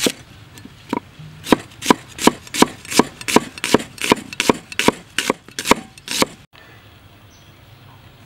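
A cleaver chopping an onion on a wooden chopping board. A sharp knock comes at the start and another about a second in, then a quick, even run of about a dozen strokes, roughly three a second, that stops about six seconds in.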